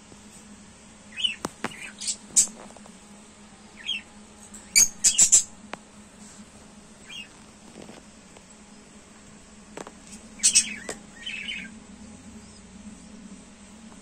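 Rosy-faced (peach-faced) lovebirds giving sharp, shrill chirps and squawks in short bursts, in four clusters with the loudest about five seconds in, over a faint steady low hum.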